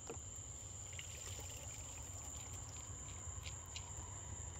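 Water trickling and dripping off a wet cast net as it is hauled up out of the water by hand, over the steady chirring of crickets.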